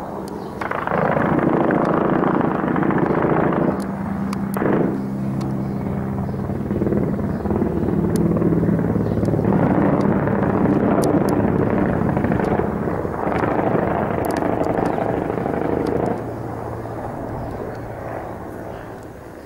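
Military helicopter flying overhead, its steady rotor and turbine drone coming up loud about a second in and easing off somewhat near the end.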